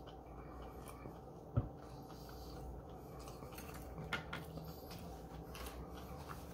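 Quiet chewing of sushi. A single sharp tap comes about one and a half seconds in, and a smaller one about four seconds in.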